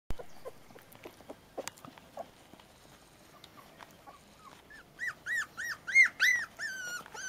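Puli puppies whimpering while they nurse: a run of about eight short, high, rising-and-falling squeals, roughly three a second, in the second half, loudest about six seconds in. Before that only faint soft clicks of suckling and shuffling.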